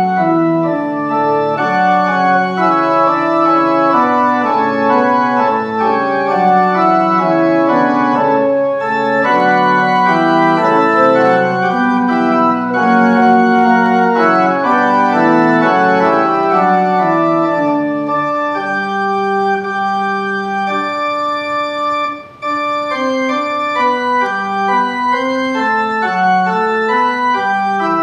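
Church organ playing a slow piece in sustained chords, with a brief break between phrases about 22 seconds in.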